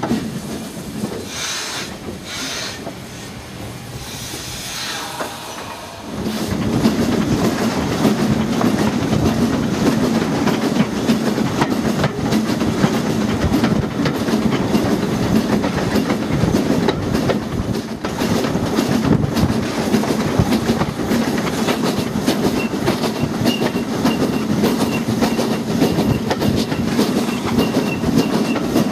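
Peckett 0-6-0 saddle tank steam locomotive running along the line, heard from the cab, with wheels clattering on the rails. It is quieter for the first six seconds, then gets suddenly louder and stays loud and steady.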